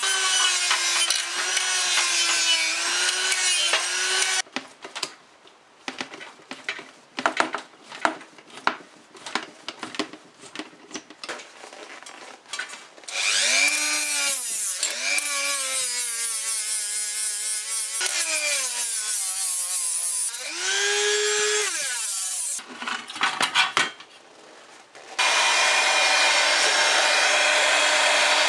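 Small handheld rotary tool with a wheel running against the steel and chrome of an old toaster. Its whine sags and recovers as the wheel is pressed on and lifted, broken by a stretch of short rapid bursts. About 25 s in a heat gun switches on with a steady blowing rush.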